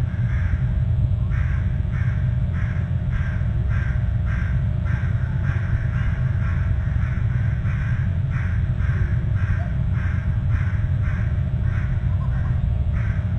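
A nestling's repeated food-begging calls, about two short calls a second, while an adult feeds it. The calls sit over a steady low rumble.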